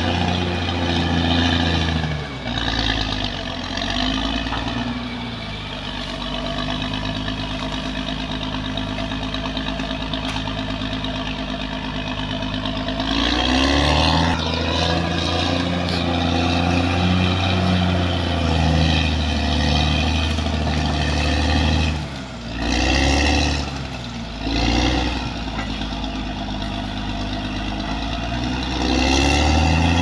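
CAT D6R XL bulldozer's diesel engine working under load as the dozer pushes earth. Its pitch drops a couple of seconds in, stays lower for about ten seconds, then rises again; it dips briefly twice near the two-thirds mark and picks up again near the end.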